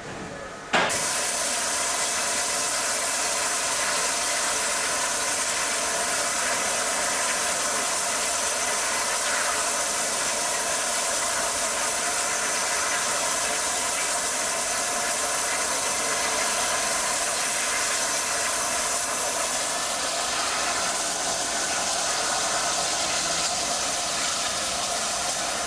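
Steady hiss of escaping steam from a standing Southern Railway rebuilt West Country class 4-6-2 steam locomotive, No. 34028 'Eddystone'. It starts abruptly about a second in and holds at an even level.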